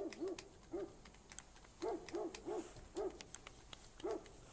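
A bird giving short hooting calls, one note at a time and once in a quick run of three, with faint clicks between.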